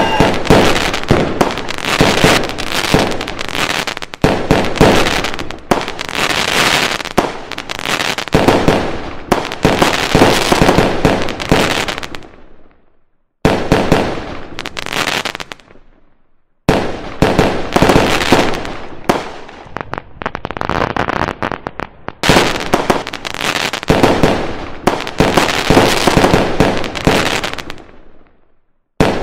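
Fireworks going off in rapid succession, a dense run of bangs and crackles. It dies away into brief silence three times and then starts up again abruptly.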